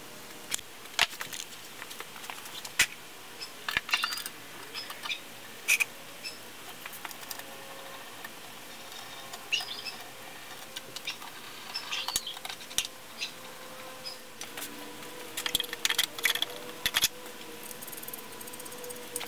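Irregular sharp metallic clicks and clinks of hand tools and parts against a bare Ford Duratec 3.0 engine as it is assembled by hand, with a busier run of clinks near the end.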